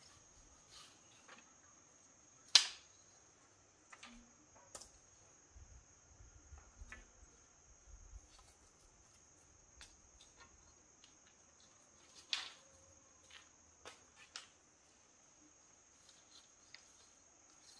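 A steady, high insect drone, with scattered sharp clicks and knocks; two louder knocks come about two and a half seconds in and about twelve seconds in.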